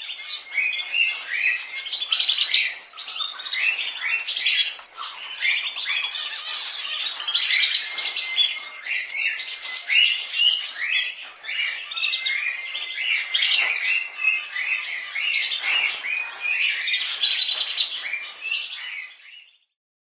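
Budgerigar (Melopsittacus undulatus) chatter: a continuous stream of short, quick chirps, warbles and squawks that stops shortly before the end.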